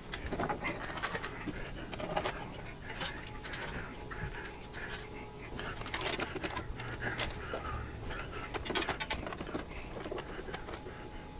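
Scattered rustling and small clicks of a wire being handled and fed along a motorcycle frame.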